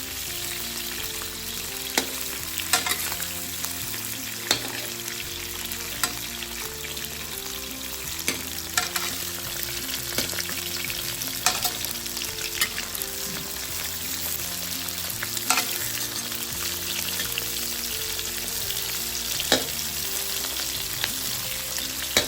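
Large prawns frying in hot oil in a wok, a steady sizzle, with sharp metal clicks every couple of seconds as a spatula turns them against the wok.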